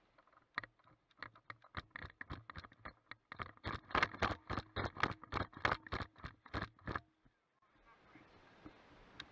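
Quick footsteps crunching on gravel and stones, a steady stride of about three to four steps a second that grows louder midway and stops about seven seconds in.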